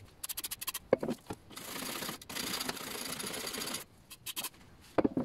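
Aerosol can of carb cleaner sprayed in one steady hiss of a little over two seconds, to clean the engine's primer base mounting face, with clicks and knocks of handling just before and after.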